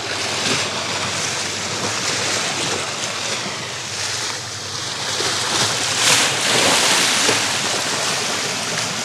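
Sea waves surging and washing over shore rocks, swelling loudest about six seconds in, with wind on the microphone.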